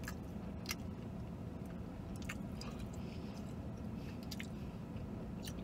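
A man chewing a mouthful of fried chicken sandwich, with a few brief, sharp mouth clicks scattered through it over a steady low hum.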